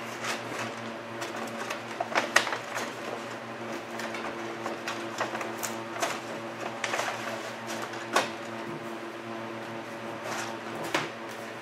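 Squeegee and hands rubbing a vinyl door wrap onto a car's door panel, making short irregular scraping and crinkling strokes as the backing peels away. A steady hum runs underneath.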